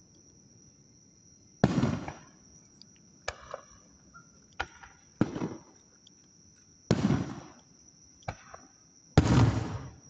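Aerial firework shells bursting in a string of booms, about four big ones spaced a second and a half to two seconds apart, each with a short rumbling tail, and smaller pops between them.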